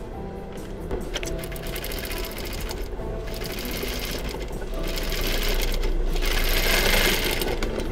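Sewing machine stitching through denim, topstitching a pocket panel, louder in the second half and stopping near the end.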